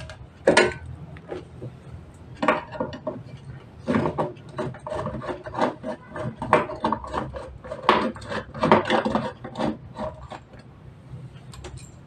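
Irregular clicks, knocks and rubbing as wall switches and a lamp holder are handled and pulled out of metal electrical boxes on a wiring board. The clatter thins out near the end.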